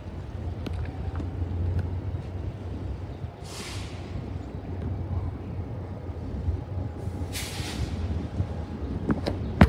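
Diesel freight locomotive approaching with a steady low rumble, and two short hisses of air about three and a half and seven and a half seconds in.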